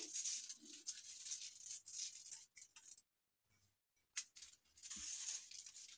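White sesame seeds sprinkled by hand, landing faintly on a ghee-greased plastic sheet with a soft rustling hiss, in two spells with a short pause about halfway and a light click as the second begins.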